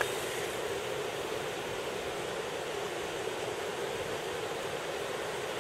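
Steady rushing of the swollen, flooded Lake Taneycomo running high over its banks, an even hiss of fast water.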